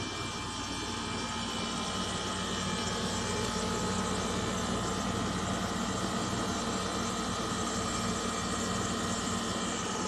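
A steady mechanical drone: a low hum and a few steady higher tones over a hiss, growing slightly louder over the first few seconds.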